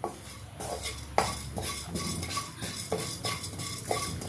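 A spatula stirring and scraping fenugreek and cumin seeds across a dark metal pan as they dry-roast over a low flame, in quick repeated strokes of about three a second.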